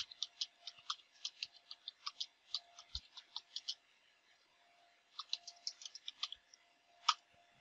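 Faint clicking of computer keyboard keys being typed in quick runs, with a pause of over a second midway and one last keystroke near the end.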